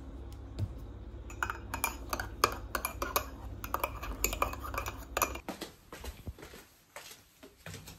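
Dishes and cutlery clinking and knocking in a quick run of sharp clinks, over a low steady hum. About five seconds in the hum stops and the clinks give way to sparser, quieter knocks.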